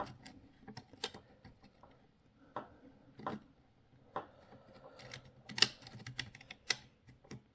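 Irregular light clicks and ticks from the throttle stick's ratchet spring on a Graupner MC-32 RC transmitter's stick unit, worked by hand so the stick clicks as it moves. The clicks come sparsely at first, then faster and louder from about five seconds in.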